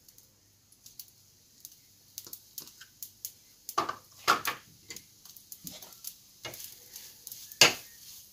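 A spoon stirring and scraping grated coconut around a nonstick kadhai: irregular light clicks and scrapes against the pan, busier in the second half, with one sharp knock near the end.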